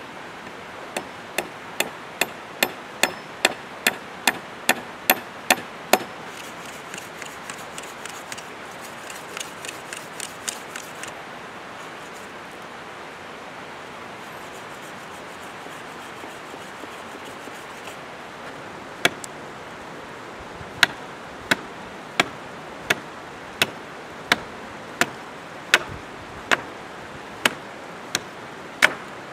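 Hatchet blows into green wood: a quick run of sharp knocks, two or three a second, for the first several seconds. After a pause, steadier chops come about every 0.7 s as a stick's end is pointed against a log. A river runs steadily underneath.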